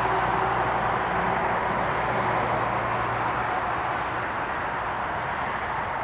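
Steady distant city traffic noise: an even rushing hiss, with a low hum underneath that fades out about halfway through.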